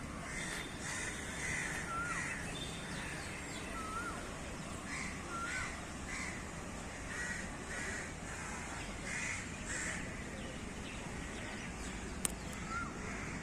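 Crows cawing over and over in a series of short, harsh calls, with another bird giving a few short rising whistled notes in between. A single sharp click sounds near the end.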